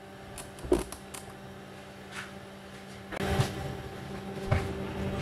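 Knocks and clicks of a front-loading washing machine being handled, then a steady motor hum starting about three seconds in, with a few thumps on top.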